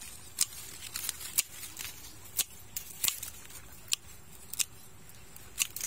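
A series of sharp, high clicks and snaps, about a dozen at uneven gaps, with quiet between them.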